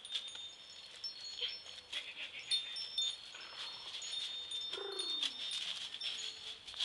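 Footsteps crunching through dry fallen leaves and seed balls during a chase, with irregular crackles. Thin high ringing notes sound on and off behind them, and a short falling cry comes about five seconds in.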